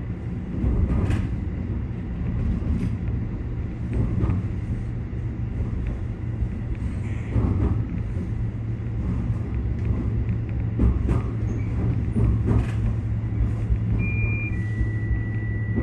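Keikyu electric train running slowly, heard from the front of the lead car: a steady low hum and rumble with occasional knocks from the wheels on the track. A steady high electronic tone sounds near the end.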